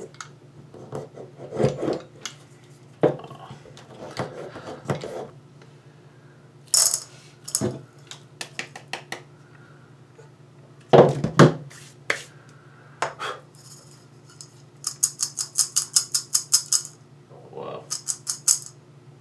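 Handling noises on a workbench: scattered knocks and clicks of a plastic measuring cup, a kitchen scale and a metal tool being picked up and set down. About three-quarters of the way through comes a quick even run of about a dozen light taps, like something being tapped to shake out powder.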